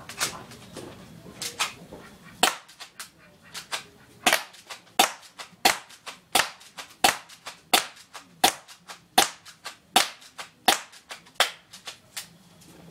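Airsoft gun firing single shots: a few spaced shots at first, then a steady string about one every 0.7 seconds. Each sharp shot has a lighter click beside it, the BB striking the cardboard box.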